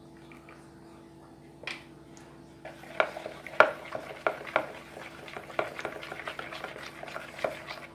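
Plastic spoon stirring slime mixture in a plastic mixing bowl, irregular scrapes and taps against the bowl starting about three seconds in, over a faint steady hum. This is detergent activator being mixed into slime glue.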